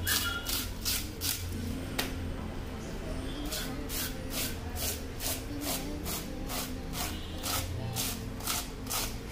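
A hand fish scaler scraping the scales off a whole Atlantic salmon in quick, even strokes, about three a second, with a short pause about two seconds in.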